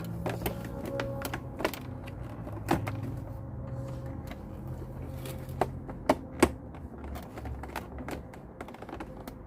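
Irregular clicks and taps of hard parts being handled while working on a motorcycle headlight assembly and its wiring, a few sharper knocks among them.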